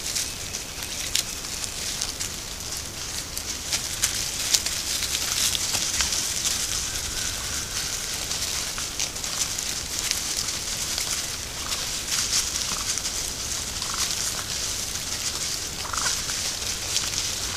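Wild turkeys giving a few short, scattered calls over a steady hiss, with light crackling of their feet in dry leaf litter.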